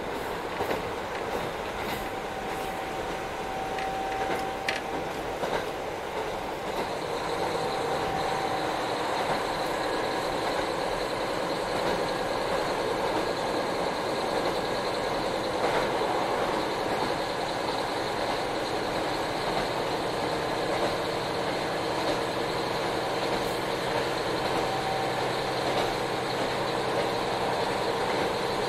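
JR Hokkaido KiHa 40 diesel railcar heard from inside the car while running on the line: a steady rumble of wheels and engine, with a few sharp clicks in the first six seconds. It grows louder about seven seconds in, and a steady high tone joins it.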